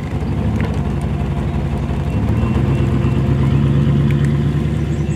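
Pickup truck engine running, then revving up about two seconds in as the truck pulls away.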